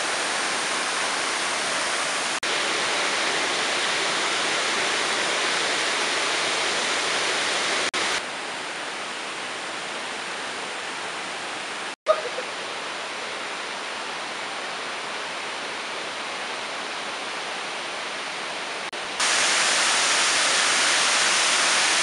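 Waterfall pouring over a stone weir and splashing into the pool below: a steady rushing hiss. It drops in level about eight seconds in, with a brief click about halfway, and grows louder again near the end.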